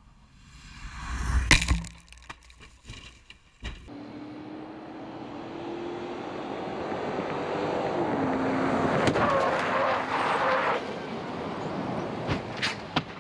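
A car in a rollover crash test: a loud crashing burst with sharp knocks about a second and a half in, then the car's engine running at speed with tyre and road noise, its pitch rising slowly and dropping about eight seconds in. Near the end come several sharp bangs as the car tumbles off the road.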